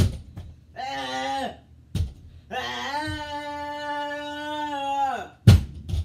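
A person making wordless caveman-style vocal sounds: a short call about a second in, then one long held note of nearly three seconds that drops away at its end. Sharp thumps come between the calls, the loudest just after the long one.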